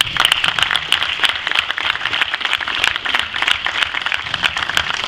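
Crowd applauding: a steady patter of many hand claps.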